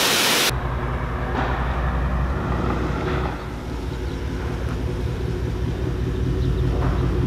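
Pressure-washer spray hissing, cut off half a second in; then a red pickup truck's engine running low and steady as the truck pulls slowly forward towing a loaded trailer.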